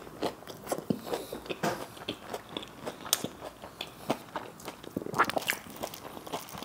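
Close-miked chewing of a crumb-coated fried egg devil (Bengali egg chop): crunchy bites and wet mouth sounds with many sharp clicks.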